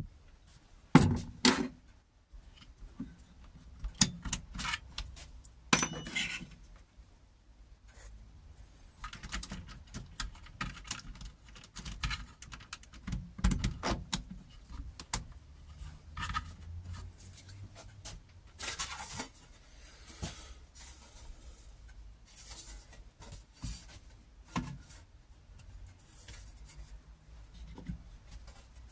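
Hand handling noises on a homemade saw table with a cordless jigsaw mounted beneath it: scattered clicks, knocks and rubbing as the hand works over the sawdust-covered tabletop, with the saw not running. The loudest knocks come about a second in and again near six seconds.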